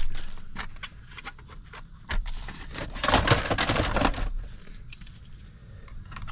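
Plastic parts of a 2014 Ford Escape instrument cluster being handled: scattered clicks and taps, with a stretch of rubbing and scraping about two to four seconds in, as the clear lens bezel is fitted back over the gauges.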